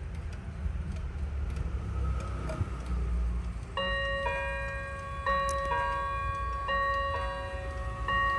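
German two-weight wall clock striking the hour in bim-bam: three hammers on brass gong rods. The strike starts about three and a half seconds in as ringing ding-dong pairs of two notes, one pair about every second and a half, each left to ring on.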